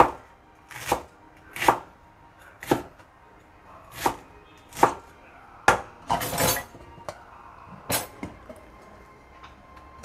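Cleaver chopping cabbage on a wooden cutting board: separate sharp knocks about once a second, with one longer, noisier stroke a little past halfway. Fainter small clinks near the end.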